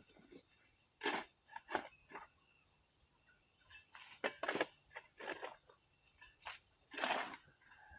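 Digging and scraping in dirt and stones: about eight short, irregular crunching strokes, the longest near the end, as a foundation footing trench is cleaned out.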